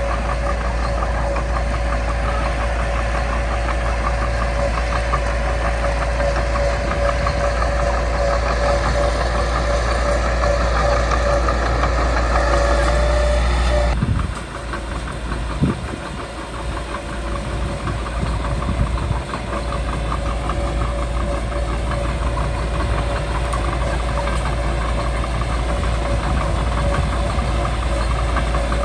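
Caterpillar D3C bulldozer's diesel engine running under work, with a steady whine over it. About halfway through the sound drops suddenly, a single sharp knock follows a moment later, and the engine then runs on steadily.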